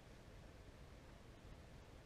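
Near silence: faint room hiss.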